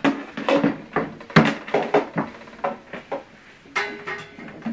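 Handling of a flat-screen TV and its cables on a tabletop: a string of light knocks and clicks, the sharpest about a second and a half in.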